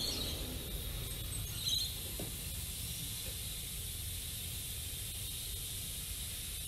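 Small coal-fired miniature steam locomotive standing in steam, hissing steadily, with no exhaust beat.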